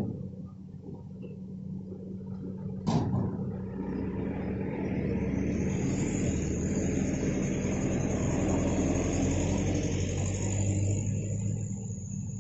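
Hitachi excavator's diesel engine running with a steady low hum, working harder from about four seconds in with a high whine on top, then easing near the end. A sharp knock about three seconds in.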